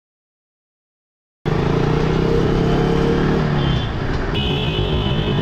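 Silent for about the first second and a half, then a motorcycle runs steadily, its single-cylinder engine making a low drone with road and traffic noise. A high steady tone joins near the end.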